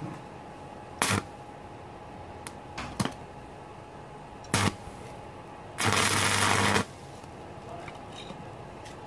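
Stick welding with a Daisung ARC200-MOS inverter welder set to 200 A. The electrode is struck three times, giving three short sharp bursts. Then the arc burns as a loud, even hiss for about a second before breaking off.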